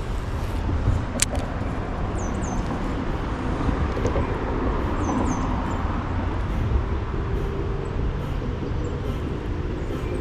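Road traffic going by: a steady low rumble, swelling as a vehicle passes about halfway through.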